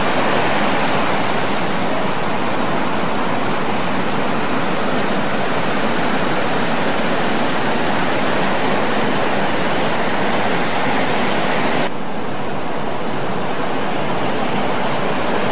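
Steady rushing noise of breaking ocean surf and white water, even and unbroken, dipping slightly in level about twelve seconds in.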